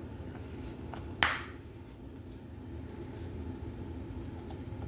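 Plastic Blu-ray case snapping open with one sharp click about a second in, followed by a few faint clicks as the case is handled.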